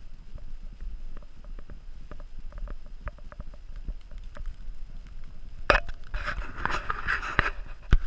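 Handling and movement noise from a camera carried outdoors: a low rumble with scattered small clicks, then about six seconds in a sharp click and a louder stretch of crunching, rubbing noise lasting about a second and a half.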